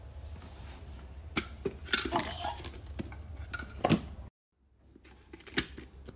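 Plastic toys knocking and clattering as a toddler handles them: several short sharp knocks over a low hum, which drops out about four seconds in.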